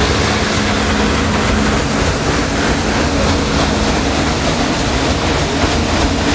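The paddle wheel of a paddle-wheel boat churning and splashing through the water, steady and loud, over a steady low engine hum.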